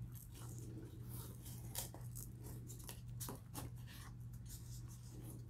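Faint handling sounds of small craft work: soft rustles of a fabric ribbon and a few light clicks of a small metal hook against a paper tag, over a steady low hum.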